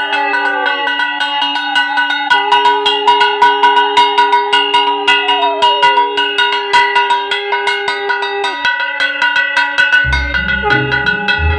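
Music with several sustained tones over quick ticking percussion, one tone gliding down partway through. A bass and drum part comes in near the end.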